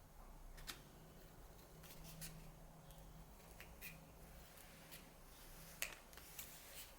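Faint, scattered small clicks and light handling noises, about seven in all with the sharpest near the end, over a faint steady low hum.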